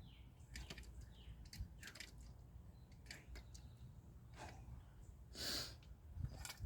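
A pot of boiled coffee swung around to settle the grounds: faint scattered clicks of the pot and its handle, and a short rushing swish about five and a half seconds in.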